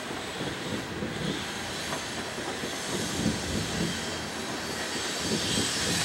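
Loaded coal hopper cars rolling past: a steady rumble of steel wheels on rail with irregular low knocks. A high wheel squeal swells near the end.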